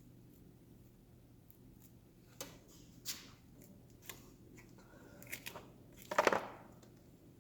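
Closed-cell tool-organizer foam being cut and worked by hand: scattered short scrapes and clicks, then a louder rasping rub about six seconds in, over a faint steady hum.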